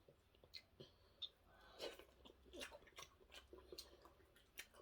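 Quiet chewing and eating sounds: small mouth smacks and clicks of someone eating soup, close to the microphone.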